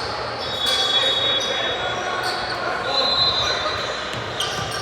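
Basketball game play in a gymnasium: a ball bouncing on the hardwood court, with high squeaks and a murmur of voices echoing in the hall.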